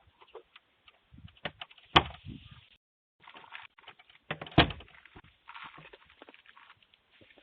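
Scattered knocks, thumps and rustling picked up by the Ring Video Doorbell 3's own microphone, which gives them a thin, narrow sound. The two loudest knocks come about two seconds in and again past four and a half seconds, with a brief total drop-out just before three seconds where one recorded clip ends and the next begins.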